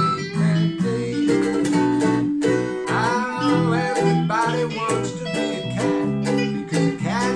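Instrumental break of a jazzy swing tune played on layered guitars and ukulele: acoustic guitar, ukulele and electric guitar parts together, with a lead line that bends in pitch.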